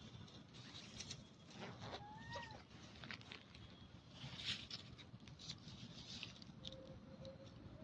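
Monkeys' faint calls: one short squeak that rises and falls about two seconds in and a faint held tone near the end, among light rustles and clicks.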